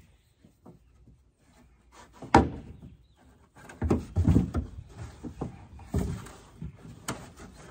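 Dull thumps and knocks on the aluminum hull of a jon boat as a child climbs and shifts about inside it. The loudest knock comes about two and a half seconds in, a cluster of thumps follows around four seconds, and there is a sharp click near the end.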